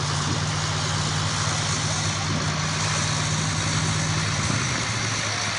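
1985 Ford F250 pickup's engine idling steadily at the start of a truck pull, its note dropping slightly about four seconds in, over an even background hiss.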